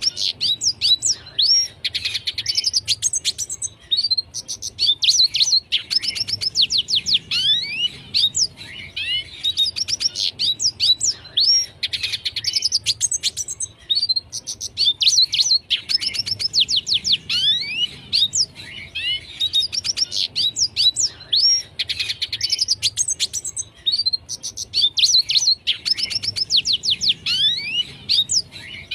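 Red siskin singing: rapid twittering phrases of quick downward-sweeping whistled notes, each phrase lasting a second or two, with short pauses between them, repeated over and over.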